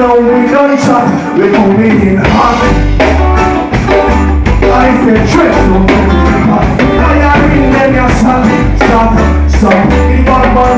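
Live reggae band playing loud with drums, bass and guitar, and vocals over the top. The bass drops out at the start and comes back in about two seconds in.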